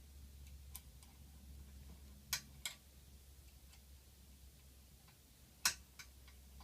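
A few sharp clicks and taps: two close together a little past two seconds in, and the loudest near the end, with fainter ticks between. A steady low hum runs underneath.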